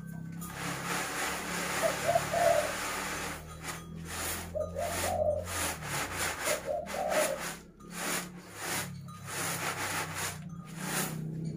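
Unhusked rice grain swishing and rattling in a round woven bamboo winnowing tray as it is tossed and shaken by hand, in repeated strokes with short breaks between them.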